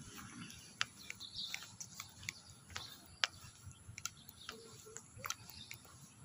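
Quiet outdoor ambience with scattered short, sharp ticks at irregular intervals and a few faint bird chirps.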